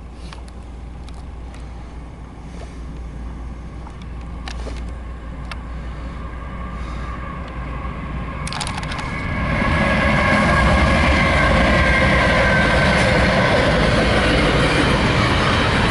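CSX intermodal freight train passing close by: a low rumble that slowly builds, then about nine seconds in the container cars arrive and it turns loud, with steady wheel-on-rail noise and a high squealing ring from the steel wheels.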